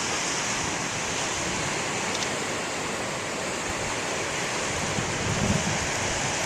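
Big storm surf breaking and washing ashore, a steady rush of water with wind on the microphone; a brief low surge about five and a half seconds in.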